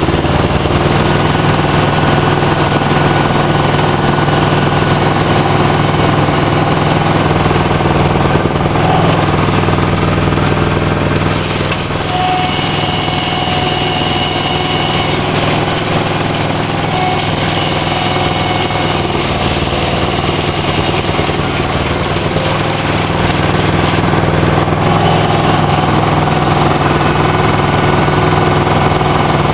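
Aquatic weed harvester's engine running steadily while its pickup conveyor lifts floating hydrilla out of the water, with a few brief higher whining tones midway.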